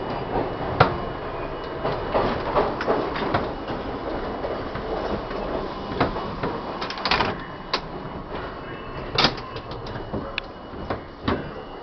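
Budd-built R-32 New York City subway car running through the tunnel: a steady rumble broken by sharp metallic clanks and clicks from the wheels and car ends, several of them standing out. It grows quieter toward the end.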